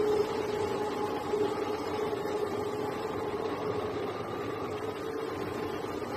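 Drive of an 80-ton industrial turntable running, a steady mechanical hum with a constant whine-like tone.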